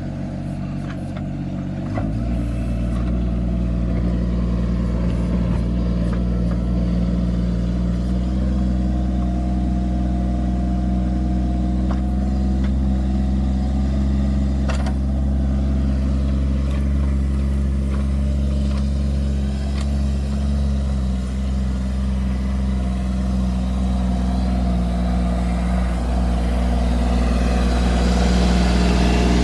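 Mahindra Jivo compact tractor's diesel engine running steadily under load as it works a mounted mini backhoe. The engine picks up about two seconds in and rises again near the end, with a sharp knock about halfway through.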